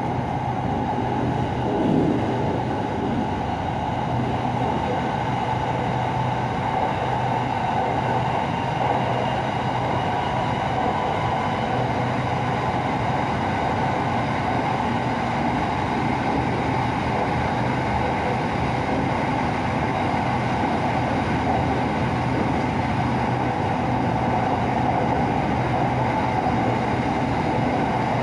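SRT Red Line electric commuter train heard from inside the car while running at speed on the elevated track: a steady rumble of wheels and running gear with a low, even hum underneath.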